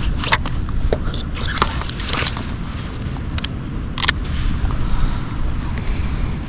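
Wind rumbling on the microphone, with scattered clicks, knocks and rustles of handling in a kayak, the sharpest knock about four seconds in.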